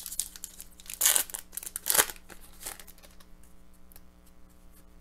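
Foil wrapper of an Upper Deck hockey card pack being torn open and crinkled, with two louder rips about one and two seconds in and lighter crackling between.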